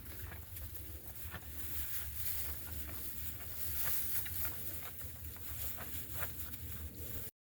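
Goats moving about in sawdust bedding: scattered light rustles and clicks over a low steady rumble, cutting off suddenly near the end.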